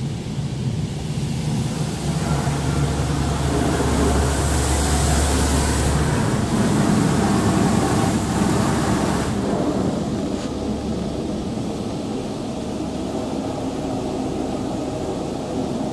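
Water jets of a touch-free automatic car wash spraying onto the car, heard from inside the cabin as a steady rushing hiss over a low rumble. The spray is loudest from about two to nine seconds in, then eases off.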